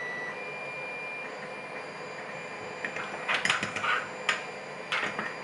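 A padlock and key being handled: a handful of short metal clicks and clinks from about three seconds in, over a steady background hum with a faint high whine.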